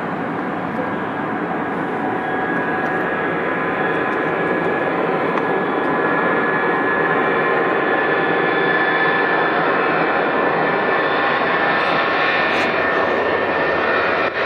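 Boeing 757 jet engines running, a steady rushing roar with a whine of several steady tones on top, growing gradually louder.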